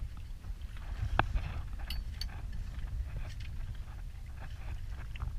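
Low wind rumble on the microphone aboard a small boat at sea, with scattered light clicks and knocks on the boat and one sharper click about a second in.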